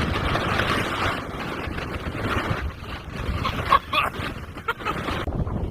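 Dust-storm wind gusting against a car: an uneven rush of noise with a strong low rumble that swells and drops.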